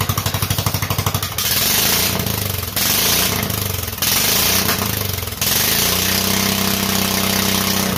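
Kohler Courage 20 hp single-cylinder engine running on its newly fitted replacement carburetor. It idles with a fast, even putter, then from about a second and a half in is revved up and down several times. Near the end it is held at a steady higher speed.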